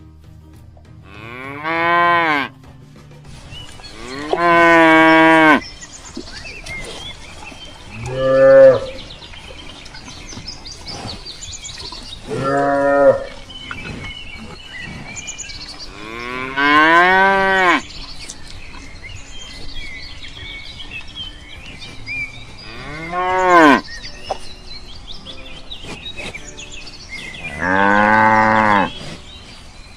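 Cattle mooing: seven separate moos a few seconds apart, each rising and then falling in pitch.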